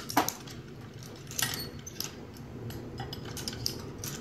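Locking carabiners clinking and clicking against metal bolt hangers as they are clipped in: a series of sharp metallic clinks, loudest at the start and about a second and a half in.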